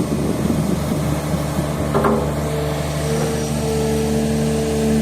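Komatsu PC200-6 excavator's turbocharged six-cylinder 6D105 diesel engine running steadily after its overhaul. A steady whine joins in about halfway through and holds on.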